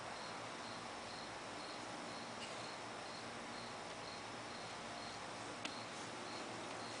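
A cricket chirping steadily at an even pace, with a couple of faint clicks.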